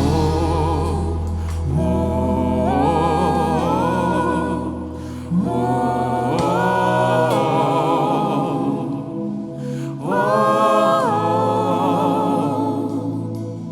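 Live gospel worship music: wordless 'ooh' singing with vibrato, joined by backing voices, in three long phrases over a sustained low bass and keyboard accompaniment.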